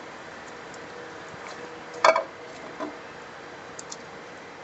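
A spatula knocking against the wok and serving bowl while cooked food is scraped out: one sharp knock about two seconds in, a lighter one just after, and two faint ticks near the end, over a faint steady hum.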